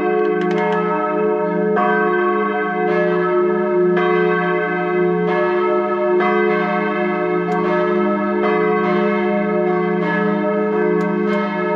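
Bells ringing, struck about once a second so that the strikes overlap into a steady, ringing chord.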